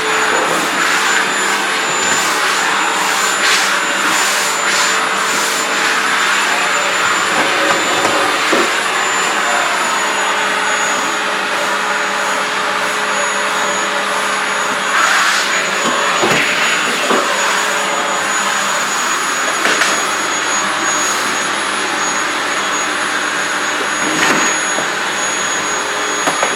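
AEG VX4 bagged canister vacuum cleaner running steadily with its hard-floor nozzle: a rushing hiss under a steady high whine, with occasional short clicks.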